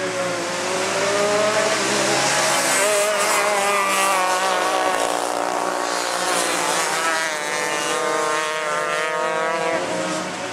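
Several 125-class outlaw kart engines racing at high revs, their pitch rising and falling as the karts accelerate out of the turns and pass by.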